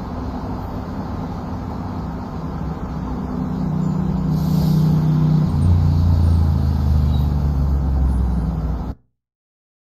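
Low, steady mechanical hum from the virtual scene's audio. It grows louder about three seconds in and drops to a deeper pitch about five and a half seconds in, then cuts off abruptly near the end.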